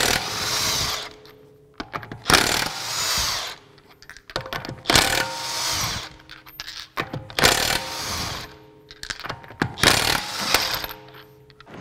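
Craftsman V20 brushless half-inch high-torque impact wrench (CMCF940M1) taking off lug nuts: five bursts of hammering and spinning, about two and a half seconds apart. After each burst the motor coasts down with a fading whine, because the tool has no real brake and holds its RPM after the trigger is let go.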